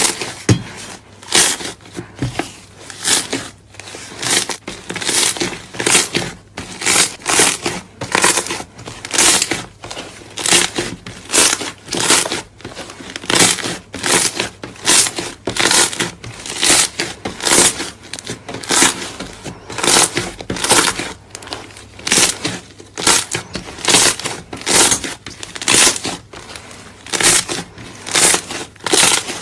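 Slime being squeezed and pressed by hand, making short, crackly, noisy bursts, about one and a half a second.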